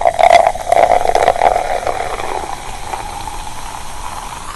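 Steady hissing noise, with crackles and pops through the first two seconds.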